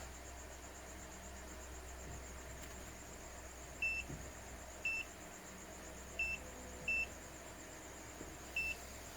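Digital multimeter giving five short, high beeps at uneven spacing, the continuity beeper sounding as the probes touch points on a laptop motherboard.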